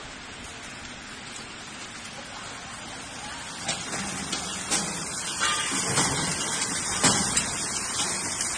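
Hot oil sizzling and bubbling in a continuous mesh-belt fryer as sliced chips are fried, a steady hiss that grows louder about three and a half seconds in, with scattered clicks and knocks.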